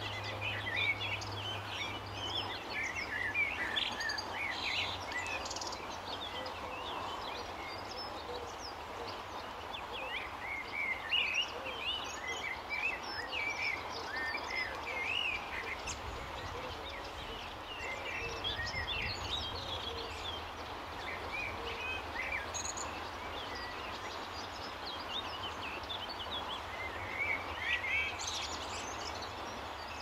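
Small wild birds singing and chirping in a busy chorus, many short quick phrases overlapping, over a steady outdoor background hiss.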